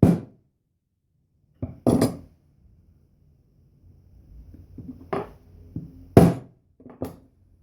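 Sharp knocks, about six, pounding on a wooden box lid so the hinges press into wax and leave impressions of the screw holes. They come at uneven intervals, the loudest about six seconds in, with a little clatter between.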